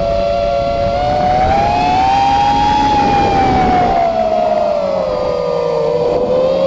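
FPV quadcopter's brushless motors whining in flight, the pitch rising about two seconds in and sinking again toward the end as the throttle changes, over a rough rushing noise.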